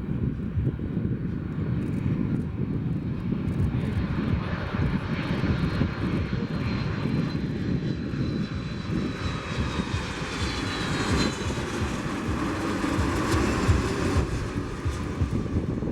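Jet engines of a twin-engine Airbus A330-200 airliner running loudly with a dense rumble, and a high whine that glides slightly in pitch about halfway through.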